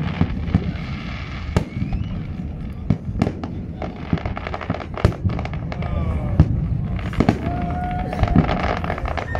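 Fireworks display: an irregular run of sharp bangs and crackles over a continuous low rumble.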